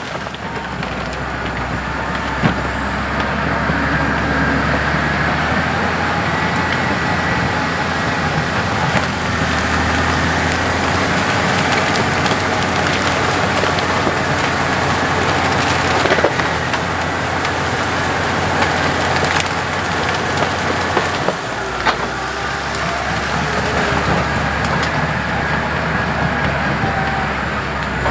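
CAT D6 bulldozer's diesel engine running steadily under load, with wood cracking and snapping a few times as the dozer pushes through trees and brush.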